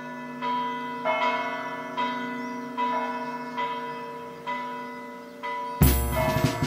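Background music: a chiming bell melody struck about once a second over a steady sustained drone, with a loud drum roll and bass coming in suddenly near the end.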